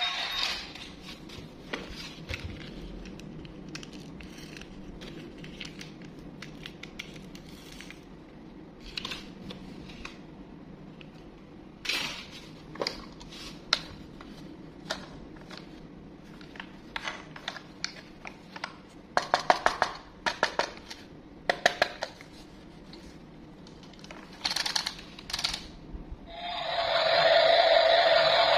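Plastic toy train being handled and lifted out of a cardboard box: scattered clicks, taps and scrapes, with quick runs of sharp clicks about twenty seconds in. Music comes in loudly near the end.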